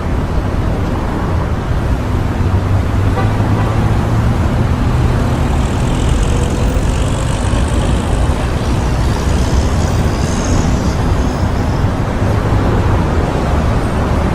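City street traffic: a steady rumble of vehicle engines and tyres passing close by, with faint high-pitched whines partway through.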